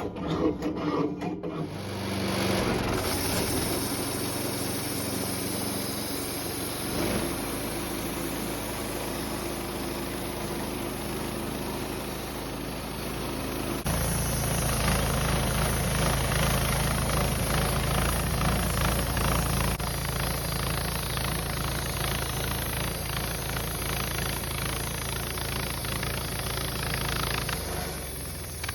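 Woodmizer LT15 portable band sawmill running its gas engine and cutting through a log. It comes up to speed in the first two seconds, gets louder and heavier about halfway through, and drops off near the end.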